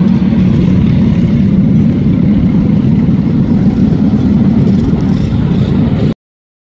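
Go-kart engines running as a pack of karts races around a dirt oval; the sound cuts off abruptly about six seconds in.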